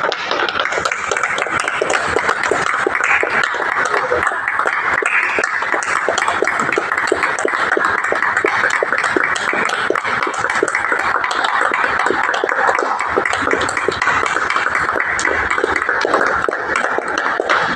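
Indistinct chatter of several voices at once, with many short, sharp clicks scattered through it.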